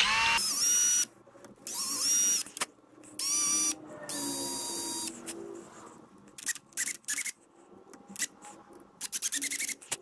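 Cordless drill boring a small hole in a wooden kettle handle, run in four short bursts of high motor whine over the first five seconds. After that come scattered light clicks and knocks.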